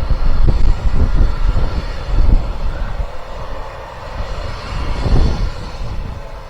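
Steam train running on a heritage railway, heard as an uneven low rumble with wind buffeting the microphone.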